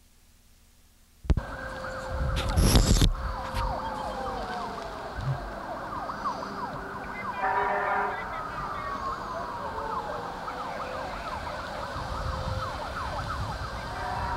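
Several fire apparatus sirens wailing over one another, their pitches rising and falling, cutting in suddenly about a second in. A short horn blast sounds about halfway through, and a brief loud rushing burst comes early on.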